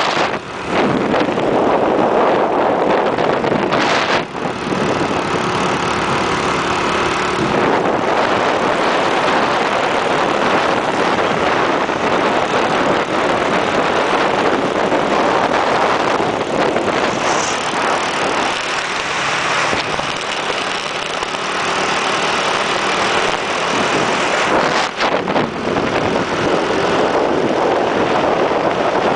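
Wind rushing over the microphone of a moving motor scooter, with the scooter's small engine running underneath.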